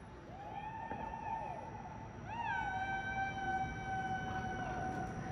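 Distant people whooping at midnight on New Year's Eve: several overlapping rising-and-falling "woo" calls, then one long held "woooo" of about two seconds.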